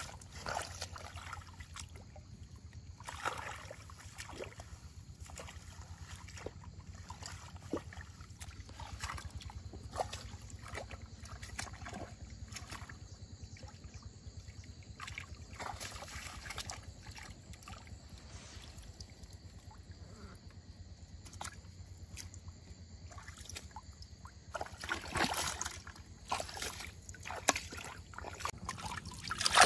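Shallow water sloshing and trickling, with scattered small splashes and knocks that come thicker and louder over the last few seconds.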